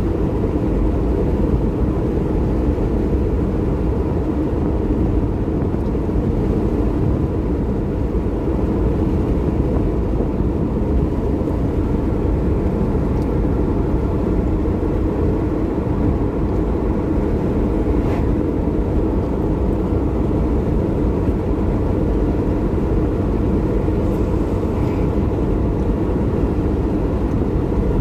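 Steady low rumble of a car driving on a tarred road, heard from inside the cabin.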